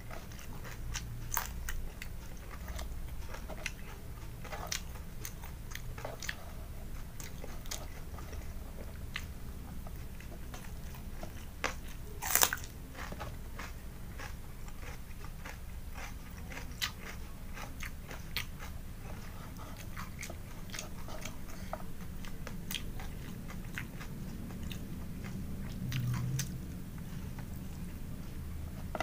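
Close-miked eating: crisp crunching bites and chewing of raw cucumber, fried snack and rice, with scattered sharp crunches, the loudest about twelve seconds in, over a steady low hum.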